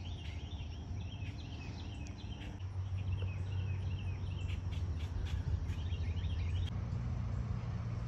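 Outdoor summer ambience: a high chirping call repeats about three times a second and stops about seven seconds in, over a steady low rumble.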